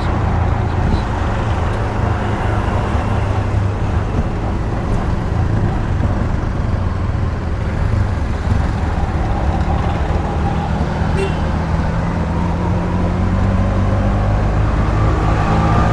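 Street traffic noise: motor vehicle engines running close by. One engine's pitch rises over the last few seconds as it speeds up.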